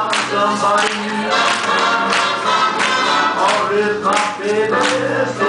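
Swing jazz music with a steady beat and voices singing in harmony.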